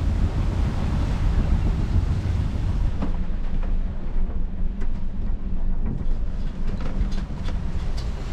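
Wind buffeting the microphone over rushing water as a Beneteau 57 sailboat moves under way. About three seconds in this changes to the duller rush of water along the hull heard from inside the cabin, with a steady low hum and a run of sharp clicks and knocks in the second half.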